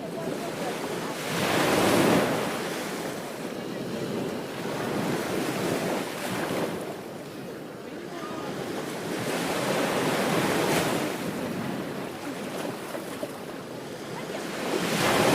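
Ocean surf breaking on a beach: a continuous wash of waves, swelling as each one breaks about every four to five seconds and hissing as it draws back.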